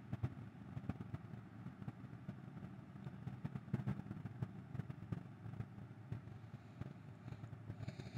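Faint, steady low rumble with scattered light clicks: quiet background noise with no distinct event.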